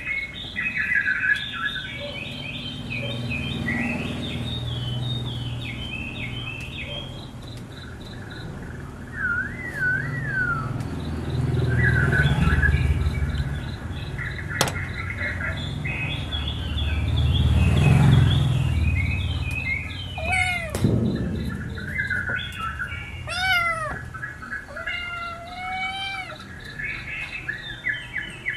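Kittens meowing several times, mostly in the last third, over continuous chirping of small birds. Low rumbles swell twice, about twelve and eighteen seconds in, the louder one the loudest sound present.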